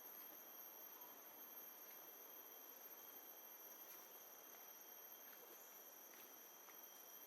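Near silence: faint, steady jungle ambience, a soft hiss with a thin, steady high drone of insects.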